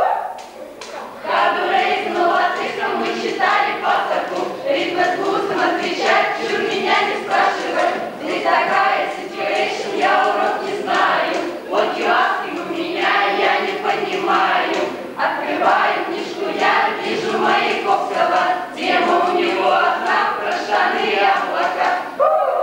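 A group of schoolgirls singing a song together, line after line, with short breaks between phrases.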